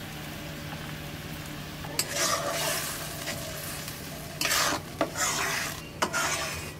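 Curry masala sizzling in a metal wok, then from about two seconds in a metal spatula stirring and scraping across the pan in four strokes.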